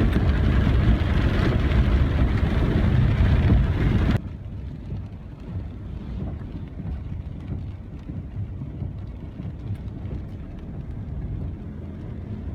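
A vehicle driving along a flooded road. Loud wind and road noise for about four seconds cuts off suddenly, leaving a quieter low rumble of the moving vehicle.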